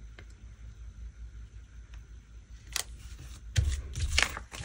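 Hands handling a sticker sheet and paper planner pages on a table: a few soft taps and clicks, then louder rubbing and thudding near the end as the sheet is pressed down flat.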